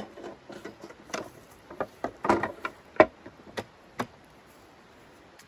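Folding camp table with tubular metal legs being unfolded and set up: a string of metal clicks and knocks, the loudest about three seconds in, stopping about four seconds in.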